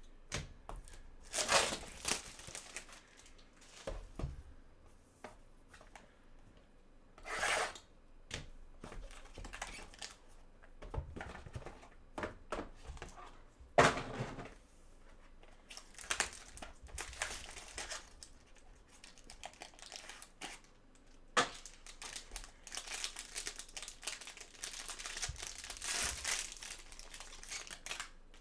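Plastic wrapping on a box of trading cards being torn open and crumpled, in irregular rustling bursts with a few sharp snaps.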